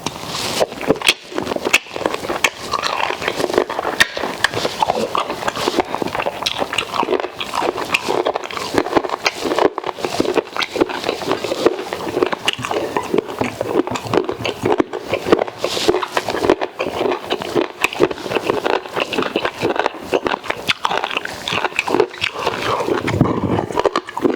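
Close-miked eating sounds: a person chewing fufu and sticky okra soup with pork, wet mouth noises and lip-smacking in a dense, continuous run of quick smacks.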